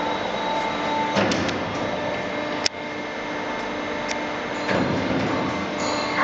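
Steady machine hum with a few clunks, a sharp click near the middle and another clunk toward the end.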